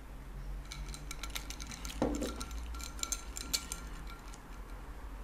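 Ice cubes clinking and ticking against a glass tumbler of energy drink, a run of light irregular ticks with a duller knock about two seconds in.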